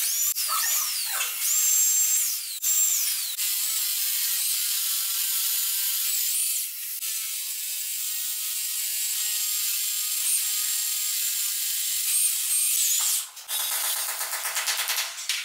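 Electric rotary hammer drill chiseling into a concrete stair step, running steadily, with a rapid clatter near the end.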